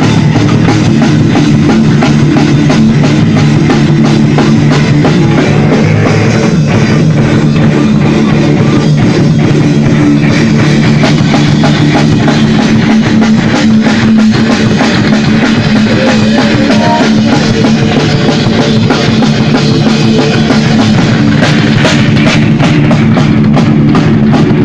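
Rock music played loud and dense, with a drum kit and guitar.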